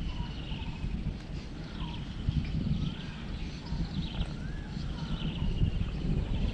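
Animal calls outdoors: a short rising-then-falling call recurring every second or two, with higher chirps, over a low rumbling background.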